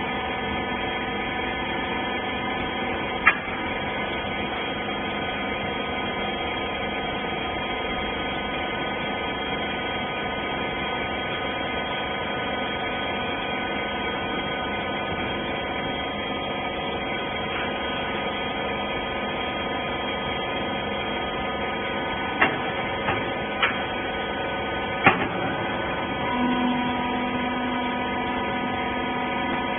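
Hydraulic rag baler running with a steady electric hum, broken by a few sharp clicks or knocks, with a lower steady tone joining in near the end.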